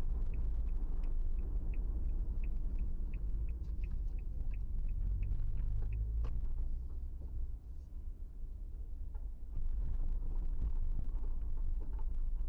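Low engine and road rumble heard from inside a Suzuki Every van on the move. A run of even ticks, about three a second, runs over it for the first six seconds, and the rumble eases briefly past the middle before picking up again.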